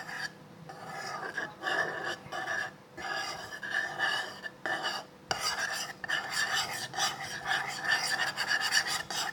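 A utensil scraping around the inside of a container, stirring white glue and water together to make slime, in repeated strokes with a few short pauses.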